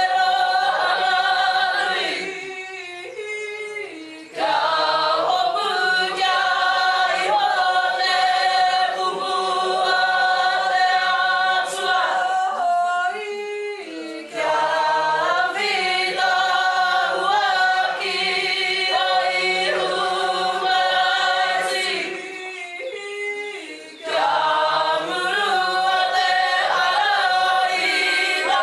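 A Māori group of men and women singing a waiata together, unaccompanied, in long held phrases with short pauses between them.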